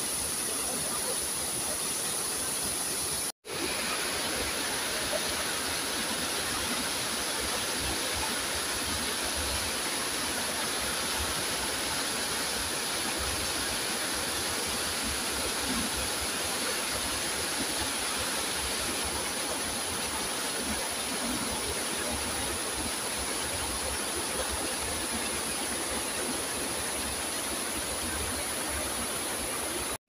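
Muddy monsoon floodwater rushing over a low stepped weir and churning through the rocks below: a steady, even rush of water, cut off for an instant about three and a half seconds in.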